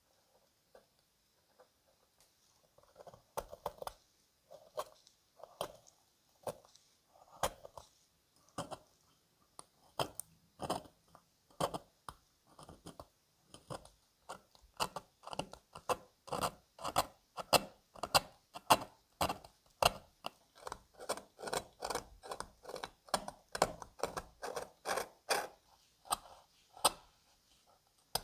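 Scalpel blade scraping green patina off the brass body of old opera glasses in short repeated strokes, spaced out at first, then quicker at about two strokes a second in the second half.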